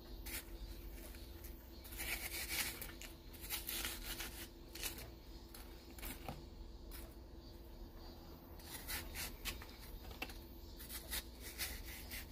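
Kitchen knife slicing through watermelon flesh and rind, cutting the rind away from wedges: a run of short, irregular cutting and scraping strokes, some louder than others.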